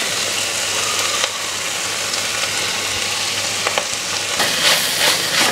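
Cluster beans sizzling steadily in a clay pot. From about four and a half seconds in, a wooden spatula stirs and scrapes through them in a few quick strokes, mixing in freshly ground coconut.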